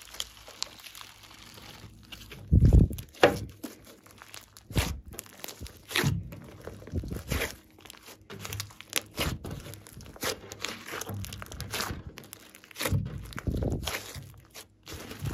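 Hands kneading, stretching and pressing a large lump of glossy slime mixed with glitter and small beads, making irregular squishes and small sharp pops. There are a couple of heavier thuds, about three seconds in and again near the end.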